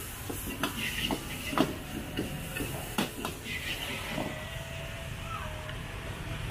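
A metal ladle clanking and scraping against a wok during stir-frying, with a quick run of sharp clanks over the first three seconds or so and fewer after. Steady sizzling and gas-burner hiss run underneath.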